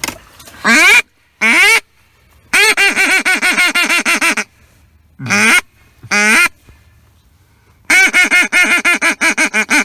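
Hand-blown duck call sounding loud, close quacks: two single quacks, then a quick run of about a dozen quacks, two more single quacks, and another fast run near the end.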